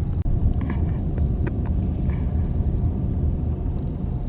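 Car cabin road noise while driving: a steady low rumble of tyres and engine, with a few faint clicks in the first couple of seconds.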